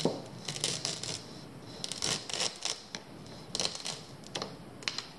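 Black duct tape being peeled off a PVC pipe coupler, in a series of short rips with pauses between.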